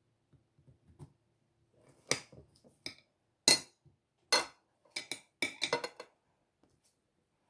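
Cutlery and dishes knocking and clinking while a honey-and-lemon drink is made, about a dozen sharp strikes that start about two seconds in and come quicker near the end.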